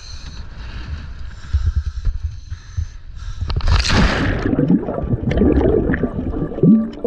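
Wind buffeting the microphone on a boat deck, then a loud splash about three and a half seconds in as a diver enters the sea. Underwater bubbling and gurgling follow.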